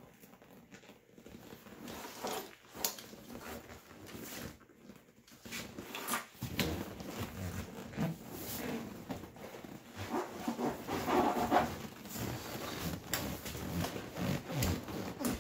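A vinyl seat cover being stretched and worked by hand over a truck seat: irregular rustling, creaking and clicks, with a few short strained vocal sounds about ten seconds in.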